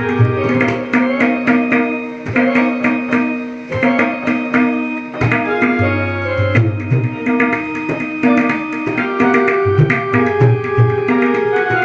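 Tabla and a portable electronic keyboard playing together. The keyboard carries a melody of held notes while the tabla keeps a steady rhythm of sharp strokes and deep bass-drum notes.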